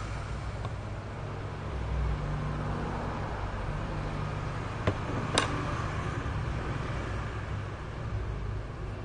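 A steady low mechanical rumble, with two sharp clicks half a second apart about five seconds in.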